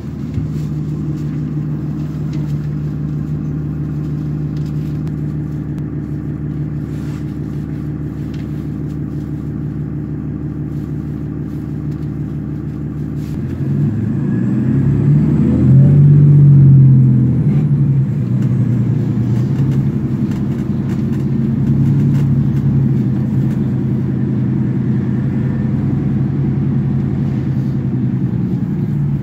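Nova Bus LFS's Cummins ISL inline-six diesel, heard from inside the bus: a steady low idle for the first half, then, about halfway through, the engine climbs as the bus pulls away and accelerates, loudest a few seconds later. It then settles into a steady run while cruising.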